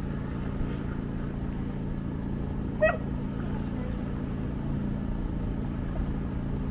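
Small portable gasoline generator running at a steady, even hum. A single short ringing clink sounds about three seconds in.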